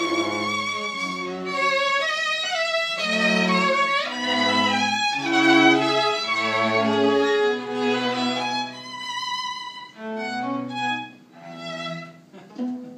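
A string quartet, violins and cello, playing a slow classical piece with long bowed notes; it grows softer and sparser in the last few seconds as the closing bars arrive.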